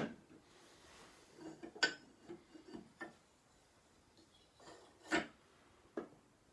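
A few light, separate knocks and clicks of wood and steel tapping together as a wooden tongue-and-groove plane and its iron are handled and the iron is fitted into the plane body.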